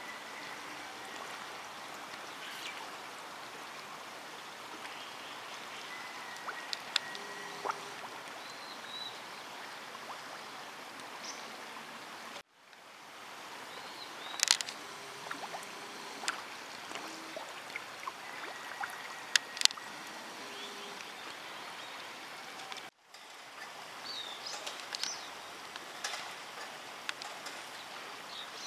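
Steady rush of river water with many short, sharp splashes as carp break the surface to snatch floating bread. The sound cuts out briefly twice.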